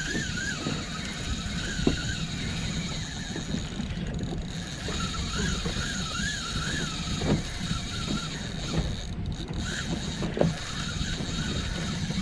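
Fishing reel being cranked, its gears whirring in short wavering spells near the start and again midway, with a few sharp clicks, over a steady low rumble of wind and water around the boat.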